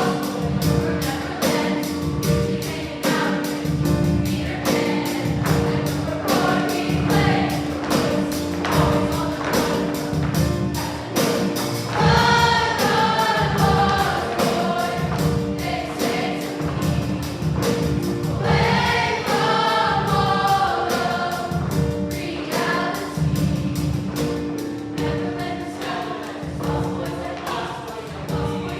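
Choir singing with instrumental accompaniment over a steady beat and sustained held notes, the voices coming forward strongly twice.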